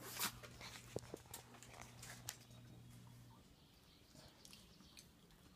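Yorkshire terriers' claws clicking and tapping faintly a few times on wooden deck boards, over a low steady hum that stops about three and a half seconds in.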